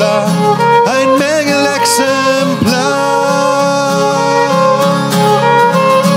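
Acoustic guitar strumming a steady rhythm with a violin playing melody over it, and a man's voice singing along without clear words in the first part.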